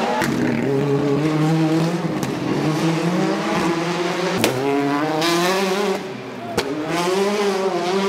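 Rally cars' turbocharged four-cylinder engines accelerating hard past, engine note climbing through the revs again and again with gear changes between. There are three sharp cracks along the way.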